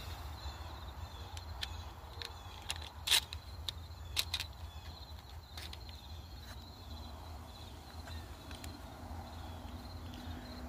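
A few sharp clicks and light knocks from a small carburetor and its plastic air-filter housing being handled and fitted together, the loudest about three and four seconds in. A faint steady chirring of insects runs underneath.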